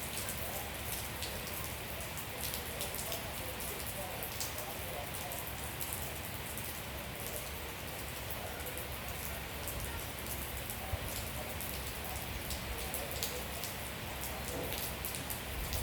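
Steady rain falling, with many separate drops ticking sharply and irregularly close by.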